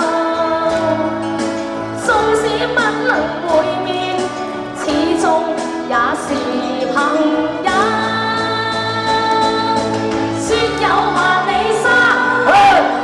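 A woman singing a Cantonese pop song into a microphone over backing music with bass and a steady beat.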